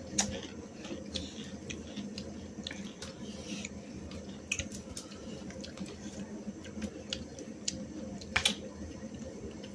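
Eating sounds from a meal in steel bowls: fingers squishing and mixing rice and curry, soft chewing, and a few sharp clicks of a spoon against steel, the loudest late on, over a steady low hum.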